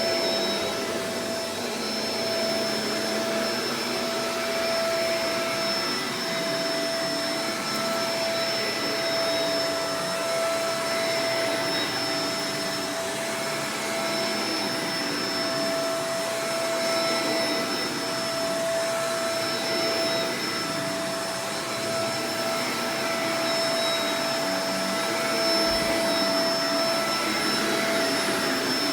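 Shark Professional Powered Lift-Away DLX (NV586) vacuum cleaner running steadily, its motor noise carrying a constant whine.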